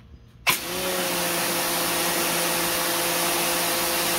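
Rock&Rocker 1500 W electric pressure washer's motor and pump kicking on as the wand trigger is pulled, starting abruptly about half a second in, then running steadily: a hum under the loud hiss of the 15-degree nozzle's spray hitting concrete.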